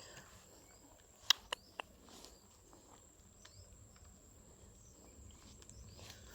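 Faint outdoor ambience with a steady, high insect drone. About a second in, three sharp clicks come in quick succession, a quarter second apart, and a few fainter ticks follow.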